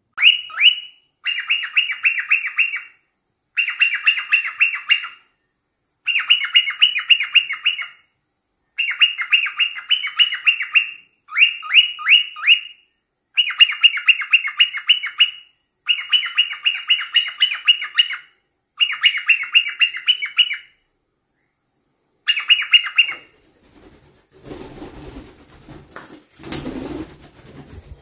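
Cockatiel chirping in about ten bursts of rapid, high chirps, each burst one to two seconds long with short pauses between. Near the end come a few seconds of low rustling.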